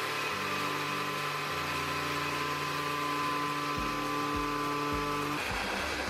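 Countertop blender motor running steadily while emulsifying homemade mayonnaise as olive oil is poured in a thin stream. A low thumping, about twice a second, joins in over the last two seconds.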